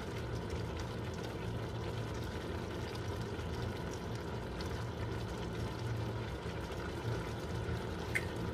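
Creamy pasta sauce simmering in a frying pan, with a steady low hum underneath and a wooden spoon now and then stirring and scraping the pan.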